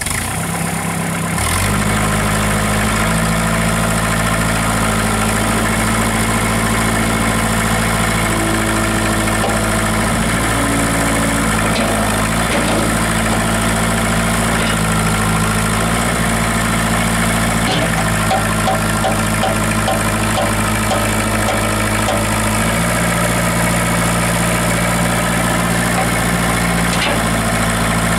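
2007 Mahindra 4510 tractor's diesel engine running steadily just after start-up. The note settles about two seconds in and shifts slightly again near the end.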